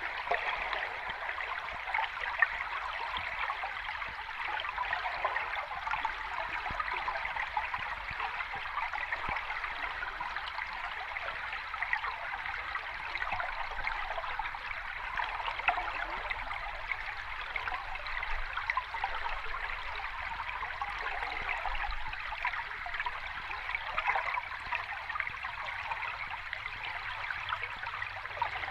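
Running water of a small cascade, a steady, even rush of splashing and trickling with little deep rumble.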